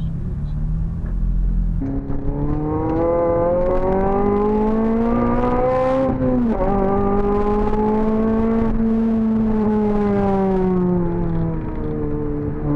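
Honda Civic Type R FN2's 2.0-litre four-cylinder VTEC engine through a Cobra resonated sports exhaust, accelerating hard: the revs climb steadily for about four seconds, drop sharply at an upshift about six and a half seconds in, then hold and slowly fall off near the end.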